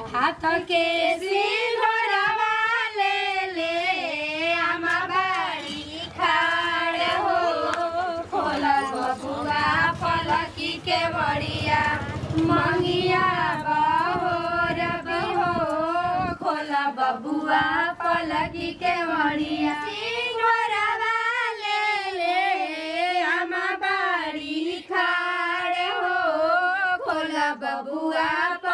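Women singing a folk song with a wavering, ornamented melody that runs on without a break, apparently unaccompanied.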